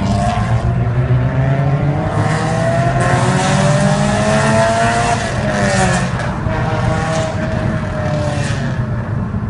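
Honda Civic (EK4) engine running through a Skunk2 MegaPower aftermarket exhaust. The engine note climbs steadily under acceleration for about five seconds, drops about six seconds in, then carries on at a lower pitch over a steady low rumble.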